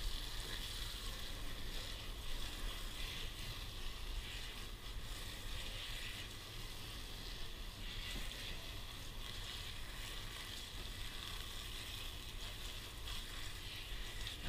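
Garden hose spray nozzle hissing steadily as water rinses a freshly scaled fish and the plastic cooler lid under it.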